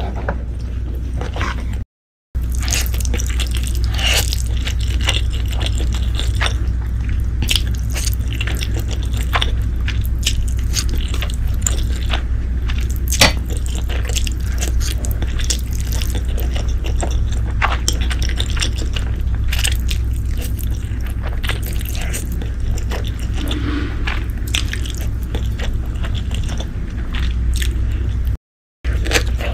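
Close-miked eating of black bean sauce noodles: wet slurping and chewing with frequent sharp mouth clicks, over a steady low hum. The sound drops out completely twice, briefly, about two seconds in and near the end.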